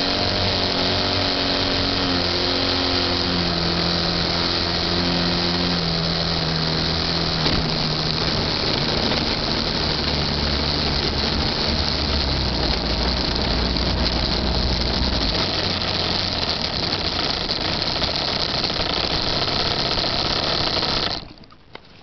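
Model airplane's motor and propeller heard from the onboard camera, with heavy wind noise on the mic. Its low tones drop in pitch over the first part as the throttle comes back while it descends to the ground. The sound cuts off suddenly about a second before the end.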